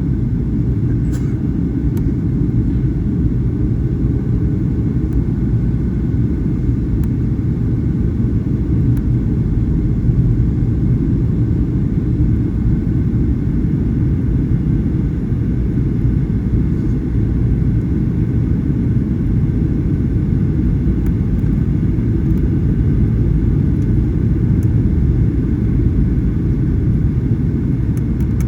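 Boeing 737-800 cabin noise in flight: a steady low rumble of engines and airflow, with a few faint ticks.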